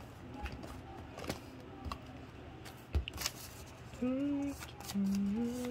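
Cardboard watch box and paper instruction leaflets being handled: light rustling and clicks, with a sharp knock about three seconds in. In the last second and a half come two short low steady tones that step in pitch, louder than the handling.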